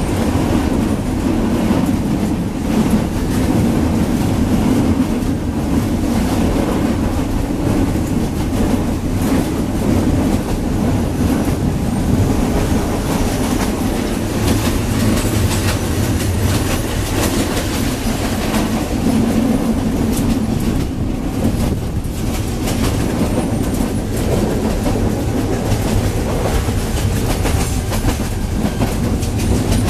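Steady loud rumble of a passenger coach running on the track, heard from inside with the windows open, with frequent knocks and rattles from the wheels and the coach body as it jolts along the rough line.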